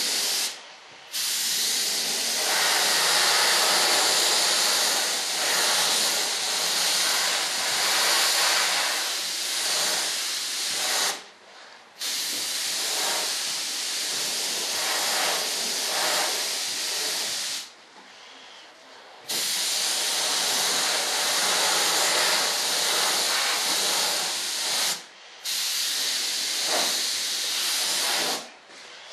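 Paint sprayer hissing in long passes while spraying paint onto a model, stopping briefly four times in between.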